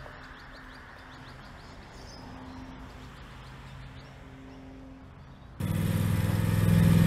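A ride-on lawn mower engine running with a low hum, with birds chirping over it. About five and a half seconds in, the mower's engine cuts in much louder and close up and runs steadily.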